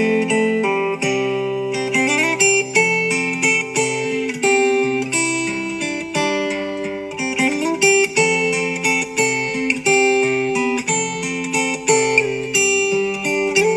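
Background music played on guitar: plucked notes and strums with some sliding notes, going on steadily.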